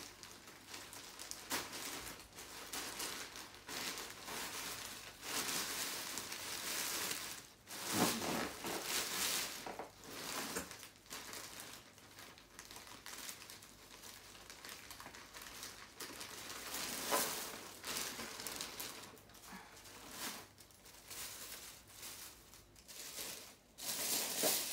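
Clear plastic packaging bag crinkling and rustling in irregular bursts as it is handled and opened by hand, with a louder burst about eight seconds in and again near the end.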